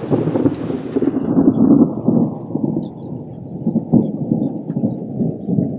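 Thunder sound effect played back from a stock library file: a deep, dense rolling rumble with a few louder swells, its brighter upper part dying away over the first three seconds and leaving a low rumble.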